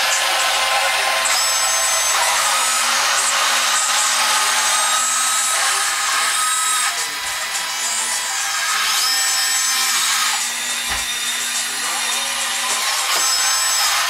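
Radio-controlled scale cable backhoe's electric motors and gear trains whirring steadily as it digs, swings and dumps its bucket, with high-pitched whines that start and stop again and again as the winches and swing drive run.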